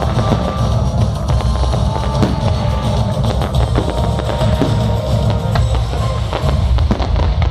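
Loud music with a heavy drum beat, with firework bangs and crackling going off over it throughout.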